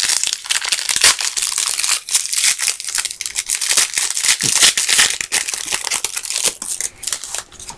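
Trading card pack wrapper crinkling and crackling as it is torn open and handled, with many small sharp crackles throughout.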